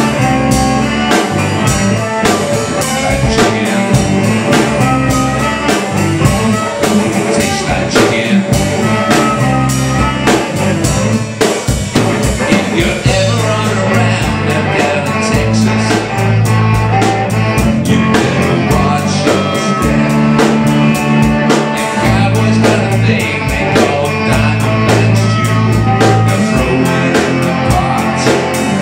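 Live blues band playing with electric guitars, saxophones and drum kit, to a steady beat.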